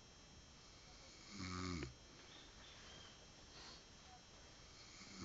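A sleeping man snoring heavily. One full snore comes about a second and a half in, a faint breath follows midway, and the next snore starts at the very end.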